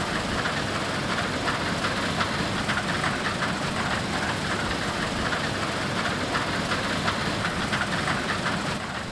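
New Holland CR9.90 combine harvester working while cutting wheat: a steady machinery drone with a fast rattling clatter through it, dropping slightly in level near the end.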